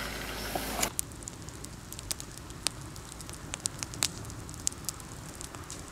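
Crackling fire: scattered sharp pops and snaps over a soft hiss, after a steady low rumble that cuts off about a second in.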